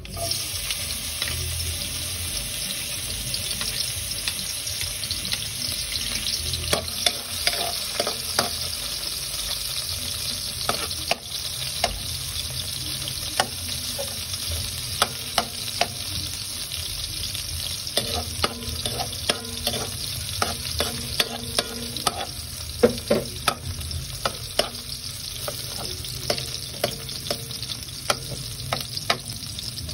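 Chopped garlic starts sizzling the moment it is tipped into hot oil in a metal wok, then sizzles steadily while a metal spatula stirs it, scraping and clicking against the pan many times.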